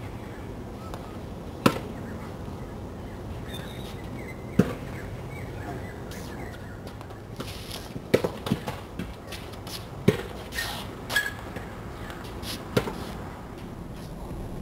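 Tennis racket hitting the ball during practice: sharp single pops every few seconds, with a cluster of smaller knocks between about 8 and 12 seconds in.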